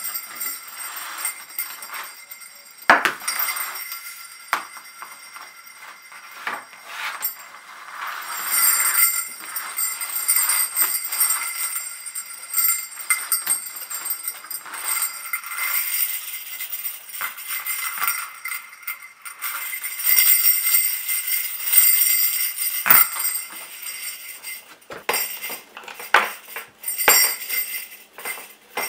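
Brass sleigh bells on leather straps jingling and clinking as the straps are handled, stacked and hung up. The jangles come in irregular bunches, with the bells ringing on between them.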